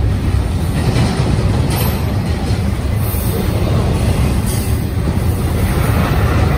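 Double-stack container cars of a freight train rolling past at close range: a loud, steady low rumble of steel wheels on the rails.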